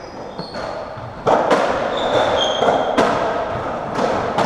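Racketball rally in a squash court: sharp, echoing knocks of racquets striking the ball and the ball hitting the walls, starting about a second in and coming every half second to a second, with short high squeaks of court shoes on the wooden floor.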